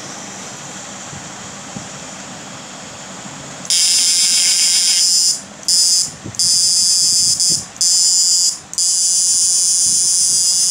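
IGBT electrofishing inverter powered up with its electrode in a bucket of water: after a low steady hum, a loud high-pitched electrical buzz starts a few seconds in, cutting out briefly four times as the output is switched off and on.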